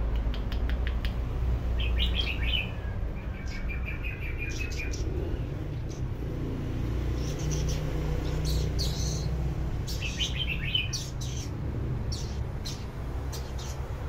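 Caged weaver bird chirping: scattered short chirps and a brief chattering trill, with sharp clicks in between, over a steady low hum.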